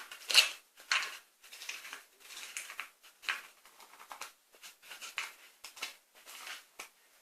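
Homemade slime being squeezed and handled by hand: short, irregular squishing sounds, one or two a second.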